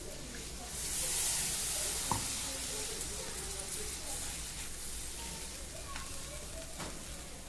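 Water poured into a kadhai of hot oil and frying spice masala sizzles, swelling about a second in and then slowly dying down as a silicone spatula stirs it, with a few light knocks of the spatula against the pan.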